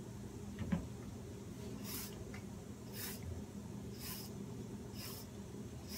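A knife peeling strips of skin off a cucumber: faint, short scraping strokes about once a second.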